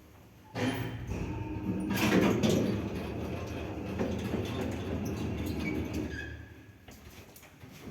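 2008 Shcherbinka-built passenger elevator in operation, starting abruptly and running with a loud, steady hum and rattle for about six seconds before fading out. The hum is strong enough to be the fault the owner is showing: the lift hums very loudly.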